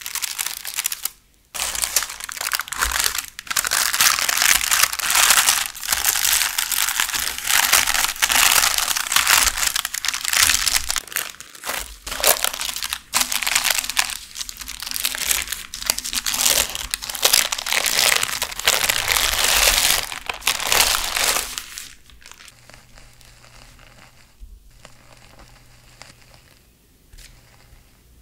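Baking parchment crinkling and rustling loudly as it is handled and peeled off a baked sponge sheet. It stops about three quarters of the way through, giving way to faint soft sounds of a spatula spreading whipped cream.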